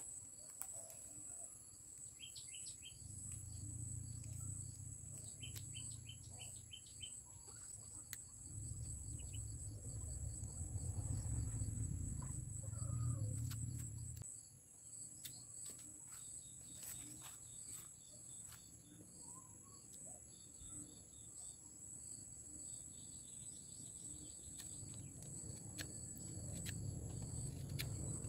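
Insects trilling steadily at a high pitch. A bird gives two quick runs of short chirps in the first several seconds, over patches of low rumbling noise.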